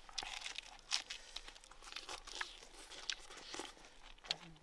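Someone eating sweet and sour pork ribs, with irregular crunching and crackling as the meat and cartilage are bitten and chewed.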